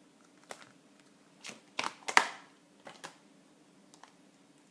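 Clear plastic stamp case and acrylic stamp block being handled on a craft table: about half a dozen light clicks and taps, the loudest about two seconds in.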